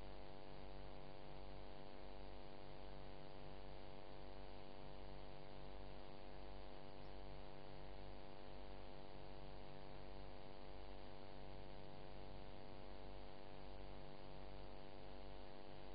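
Steady electrical mains hum with a buzz and a layer of hiss, unchanging throughout, with no other sound.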